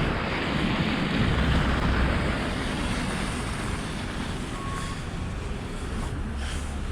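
Steady city traffic noise, cars passing with a low rumble, mixed with wind rushing on the microphone.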